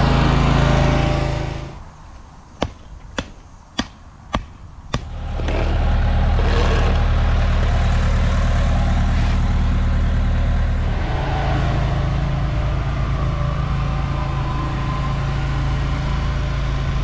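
A heavy equipment engine, such as an asphalt roller's, runs steadily. It drops away about two seconds in, and during the gap five sharp clicks come about half a second apart before the engine sound returns.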